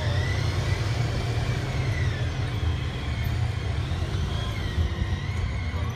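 Motor vehicle running: a steady low rumble with a high whine that slowly wavers up and down.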